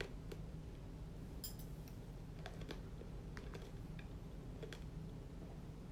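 Light, irregular taps and clicks of typing over a steady low hum in the room.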